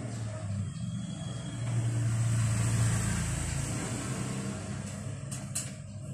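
Scooter engine running steadily. It swells louder about two seconds in, then settles back, and a couple of sharp clicks come near the end.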